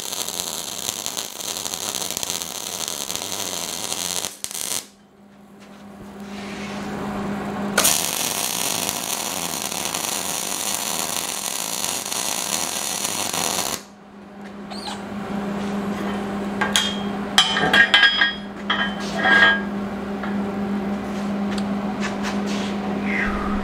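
Wire-feed welder arc crackling and sizzling in two welds, the first stopping about four and a half seconds in and the second running from about eight to fourteen seconds. Between and after the welds there is a steady low hum, and near the end a few sharp metallic clinks as the steel work is handled.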